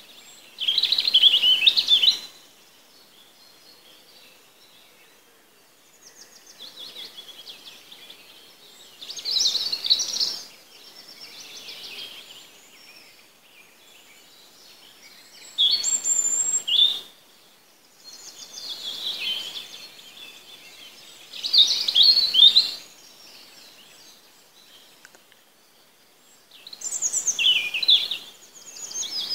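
A wild songbird singing short, high-pitched phrases of about a second to a second and a half each, repeated every five or six seconds, with quieter song phrases in between.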